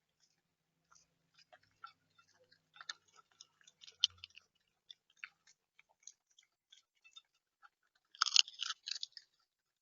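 A bird pecking and cracking seed at the feeder: irregular sharp clicks and crunches, with a louder run of crunching about eight seconds in.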